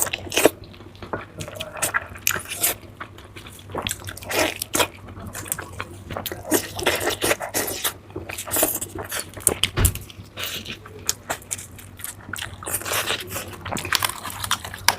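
Close-miked eating: chewing and mouth sounds in a quick, irregular series of short clicks, wet smacks and crunches.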